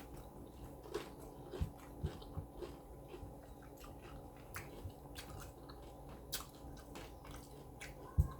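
Close-miked chewing and biting of tacos: scattered wet mouth clicks and small crunches. A few dull thumps come through, the loudest one near the end.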